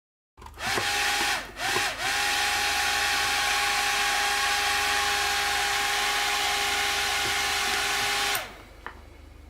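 Small high-speed electric motor whining with a dense hiss. It starts, stops briefly twice, then runs at a steady pitch for about six seconds before cutting off.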